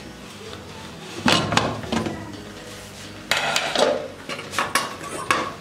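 Aluminium pressure cooker lid being twisted open and lifted off, metal scraping and clanking in two main bursts, about a second in and again about three seconds in, with a few lighter knocks after.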